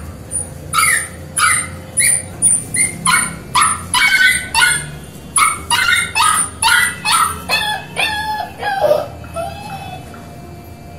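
Puppies giving a fast run of short, high-pitched yelps and whimpers, two to three a second, the last few lower whining cries; they stop about nine seconds in.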